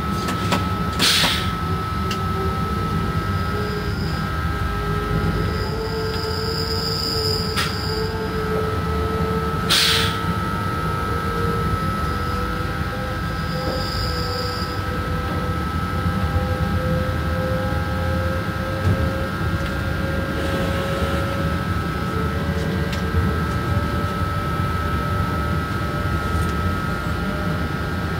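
Driver's cab of an SNCF BB 27300 electric locomotive under way: a steady rumble from the running gear on the rails, with a whine that rises slowly in pitch as the train gathers speed. Two sharp knocks come through, one about a second in and another about ten seconds in.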